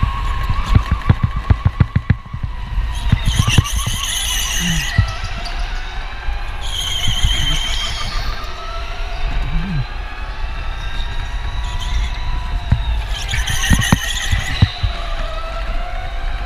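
Electric go-kart driven hard, heard from a kart-mounted camera: the motor whine rises and falls in pitch, and the tyres squeal three times through corners. Rapid knocks in the first few seconds and a steady low rumble of wind and vibration on the mounted microphone.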